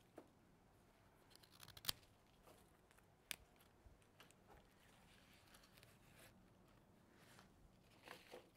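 Faint rustling of cut flower stems and foliage being handled, with two sharp clicks, about two seconds in and again about a second and a half later.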